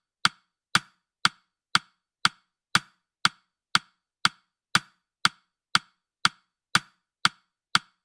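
Countdown timer's tick sound effect: short, sharp clicks at an even two a second, with silence between.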